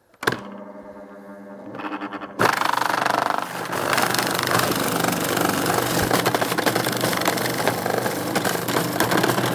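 Electric food processor switched on with a click and running with a steady hum. About two and a half seconds in it turns much louder and rougher as the spinning blade purees a wet marinade of garlic, ginger, red bean curd and sauces.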